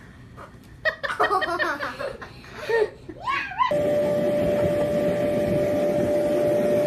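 Laughing voices for a few seconds. Then a steady rushing noise with a constant hum starts abruptly about halfway through and holds level.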